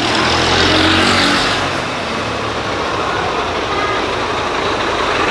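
A motor vehicle's engine running, with heavy road or wind noise.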